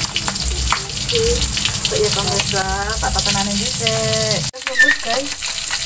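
Pestle grinding and squashing chillies, shallots and shrimp paste in a cobek mortar for sambal terasi: wet scraping and crushing over a steady hiss. The sound drops out abruptly for a moment about four and a half seconds in.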